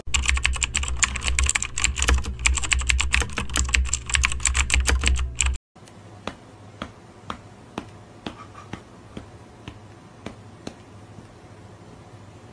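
Fast typing on a computer keyboard, a dense clatter of keystrokes over a low hum. About five and a half seconds in it cuts off suddenly and gives way to quieter, separate key clicks, roughly two a second.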